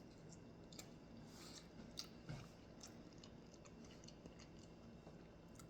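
Faint chewing of a french fry dipped in ketchup, with a few soft, scattered crunches.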